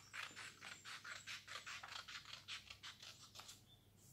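Scissors cutting through a sheet of paper: a faint, quick run of short crisp snips, about five or six a second, that stops near the end as the strip comes free.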